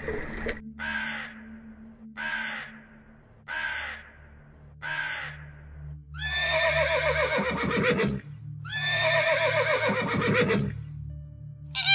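Horse neighing twice, each whinny about two seconds long and falling in pitch toward the end. Before the whinnies come four short, harsh calls about a second and a half apart.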